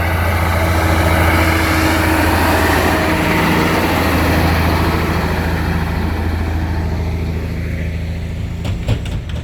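Heavy diesel engine of a road construction machine running steadily with a deep hum, loudest about a second in and easing off slowly, dropping away near the end.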